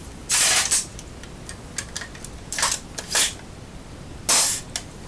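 Handling noise from a G&P M870 full-metal airsoft shotgun: four short rasping scrapes with small clicks between.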